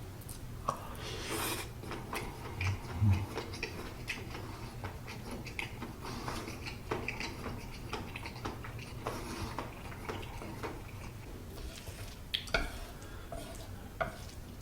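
Close-up eating sounds: chewing spicy fried noodles, with many small clicks of utensils against a dish and a few short louder bursts.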